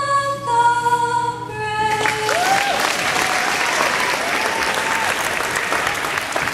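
A young woman's solo voice holds the last notes of the national anthem. About two seconds in, the crowd breaks into steady applause and cheering, with a couple of whoops.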